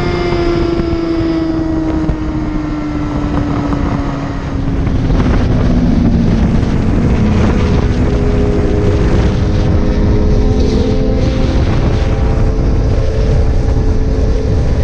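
Yamaha R6 sport bike's inline-four engine at freeway speed, its pitch falling steadily over the first four seconds or so as the throttle is rolled off, then running steadily. Heavy wind rush on the microphone, louder from about four or five seconds in.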